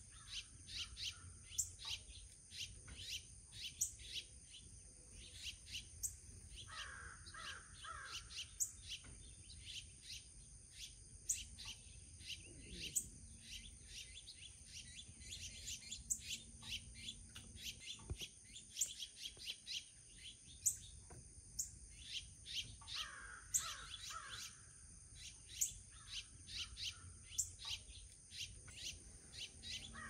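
Wild songbirds chirping and calling in many short, quick, overlapping notes, with a steady high-pitched background tone.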